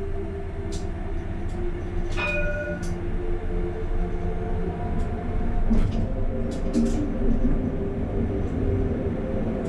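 Bordeaux line A tram running along the track: a steady rumble with the hum of its electric motors and a few sharp clicks. About two seconds in there is a brief ringing tone.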